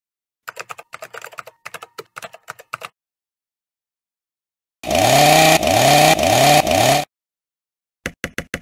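Cartoon sound effects: a rapid run of clattering clicks, then after a pause four loud rising revs in quick succession, like a power saw slicing, then a few short clicks near the end.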